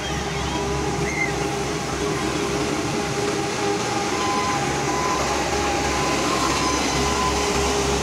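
L&T 1190D single-drum road roller's diesel engine running steadily as the machine rolls slowly over a loose crushed-stone road base. A low rumble carries a steady whine, with a higher steady tone joining about halfway through.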